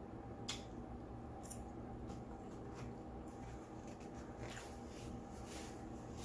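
Faint eating sounds of a meal of fried chicken fingers and fries: scattered soft clicks and rustles of chewing and handling the food, over a steady low hum.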